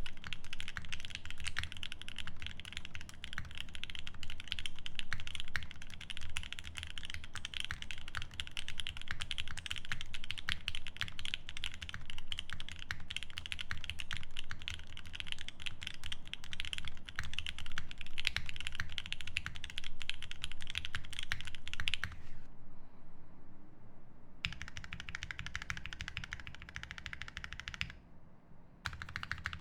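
Fast, continuous typing on a Geon F1-8X mechanical keyboard with lubed OP Black switches, an aluminium plate and GMK keycaps: a dense patter of key strokes. The typing stops for about two seconds after roughly two-thirds of the way through, resumes, and pauses briefly once more near the end.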